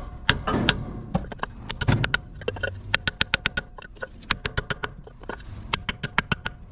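Sharp knocks in quick runs: a wooden block being hammered down onto the pistons of the Mack's Magnadyne flathead inline-six to free them. The rusted pistons stay seized in their bores and the engine is locked up.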